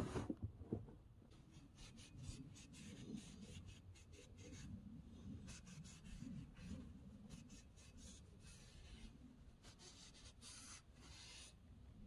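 Faint, scattered scraping and rustling, as of things being handled close by, over a low steady rumble.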